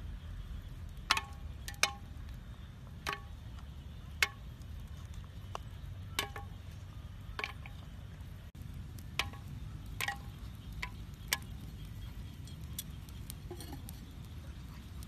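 Shellfish shells clinking against each other and against a clay pot as they are handled and put in, about a dozen sharp, ringing clinks at uneven intervals. A steady low rumble runs underneath.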